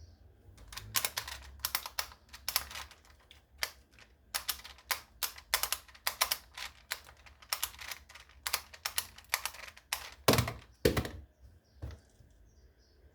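Rapid, irregular plastic clicking and clacking, like a speed cube being turned quickly, ending with two louder thumps.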